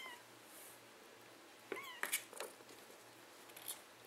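Kittens almost four weeks old giving short, high mews while play-fighting: one at the start and another just before two seconds in, with a few sharp scrabbling clicks of paws and claws around two seconds and again near the end.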